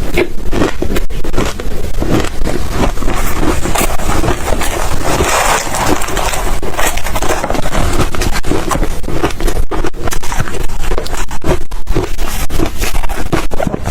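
Ice being bitten and chewed close to the microphone: a dense, irregular run of loud crunches and cracks.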